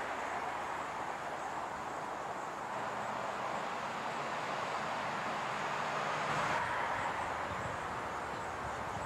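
Steady outdoor background noise: a constant hiss with a low rumble underneath, swelling slightly about six and a half seconds in.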